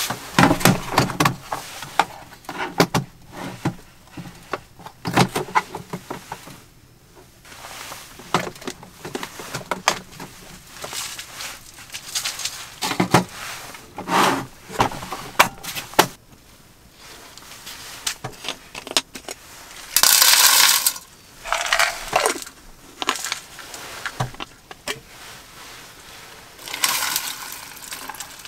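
Hands handling a hard plastic case and the small jars inside it: a string of clicks, knocks and clinks as it is set down and its lid opened. Later come two short rushing noises, the second being water poured from a plastic bottle into an aluminium mess tin near the end.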